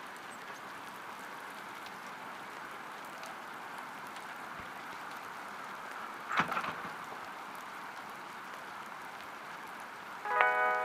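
A steady soft hiss like light rain, with a single knock about six seconds in. Near the end a ringing chord of several pitched notes comes in.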